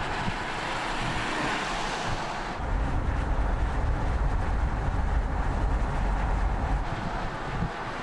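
Audi A6 ultra saloon driving past on an open road: steady tyre and wind noise, with a deep low rumble that comes in about a third of the way through and drops away near the end.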